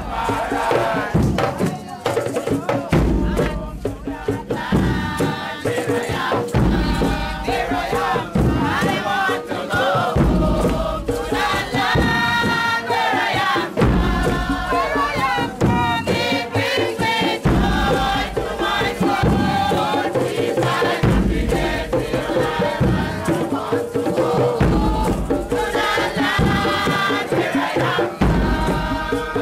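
Bobo Shanti Rastafarian marchers chanting and singing together in unison, with a deep drum beat about every two seconds.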